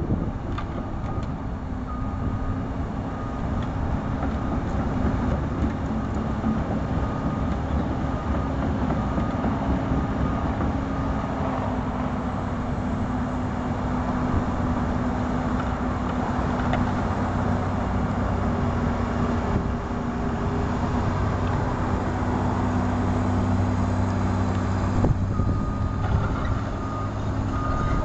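Komatsu PC200LC-8 excavator's six-cylinder diesel engine running steadily as the upper structure swings round. A high warning alarm beeps repeatedly for the first dozen seconds and again near the end.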